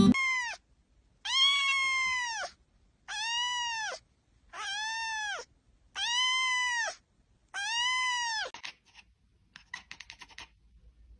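A cat meowing repeatedly: six drawn-out meows about a second and a half apart, each rising then falling in pitch, followed near the end by a few faint quick clicks.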